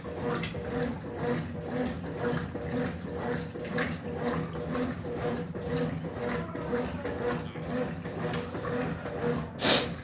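Electrolux LF75 top-load washing machine agitating a load: the agitator swishes back and forth through the water at about two strokes a second over a steady motor hum. A brief loud burst of noise comes near the end.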